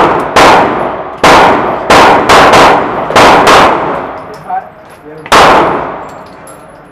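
Gunshots on an indoor firing range: about eight shots in irregular groups over the first four seconds, then one more after a pause of nearly two seconds. Each shot rings on in a long echo off the enclosed range.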